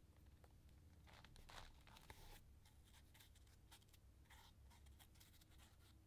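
Faint rustling and small scratchy clicks of fingers handling paper on an art journal page, loudest for about a second and a half starting a second in.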